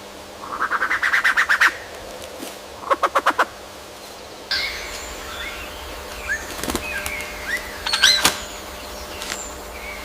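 Indian peafowl giving a rapid run of about a dozen harsh pulsed calls, then a shorter run of about six. About halfway through, the background changes and assorted short bird chirps and whistles follow.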